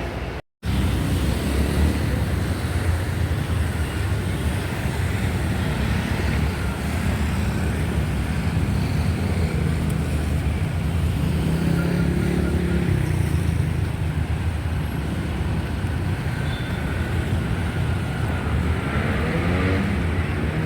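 Road traffic noise: a steady rumble of passing cars and engines, with an engine speeding up near the end. The sound drops out abruptly for a moment about half a second in.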